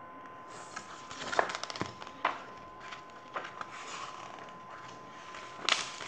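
Pages of a paperback picture book being turned and handled: paper rustling, with a few sharp crackles.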